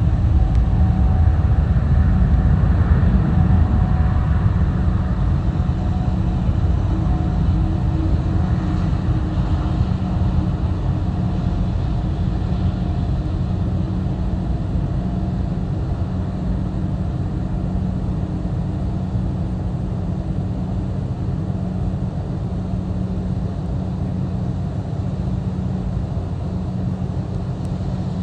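Boeing 747's four jet engines rumbling as the airliner rolls out on a wet runway after landing. The sound is loudest in the first few seconds and slowly fades as the aircraft slows and draws away.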